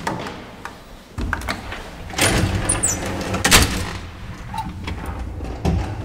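An old lift's manual doors being shut. A latch clicks, then a metal gate slides with a rattle and a brief high squeak, and it shuts with a loud clunk about three and a half seconds in. A smaller knock comes near the end over a low steady hum.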